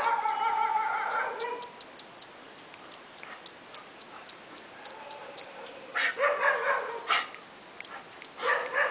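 Golden retriever whining and yipping: a long wavering whine at the start, then short sharp yips in bouts about six seconds in and again near the end. Light clicks and clinks, as from the dogs' metal chain leash, come between the bouts.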